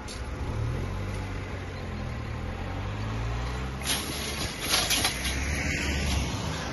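Cars driving over a level crossing as it reopens: a low engine hum, then tyres bumping over the rails with a few sharp clatters about four to five seconds in.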